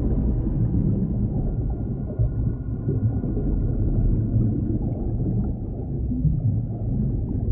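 Muffled underwater ambience: a steady low rumble with gurgling water, heard as from below the surface. A faint thin high tone is held from about a second in until about five seconds in.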